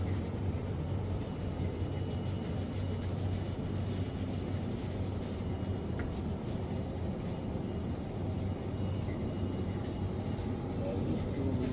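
Supermarket background noise: a steady low hum and rumble.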